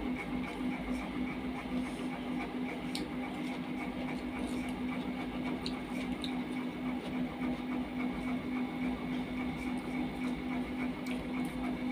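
A steady mechanical hum with a fast, even flutter, with a few faint clicks of fingers against a steel plate as rice and curry are mixed by hand.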